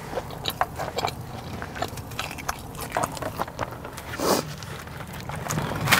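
Close-miked chewing of a Korean corn dog with rice cake: crisp batter crunching and many small mouth clicks. A brief louder rustle a little past four seconds in.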